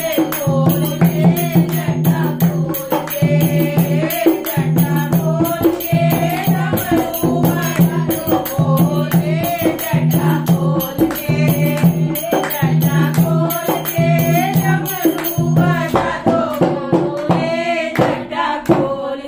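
Hindi devotional bhajan to Shiva sung with dholak drum accompaniment and a fast, regular high beat keeping time. About three seconds before the end the singing stops and a few sharp dholak strokes close the song.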